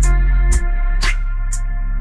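Background music with sustained bass and chords and a short percussive hit about every half second.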